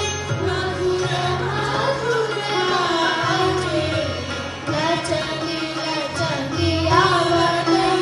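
Choir of women's and girls' voices singing a Hindi devotional song (bhajan) together, one gliding melody line with held, bending notes, over an Indian-style instrumental accompaniment.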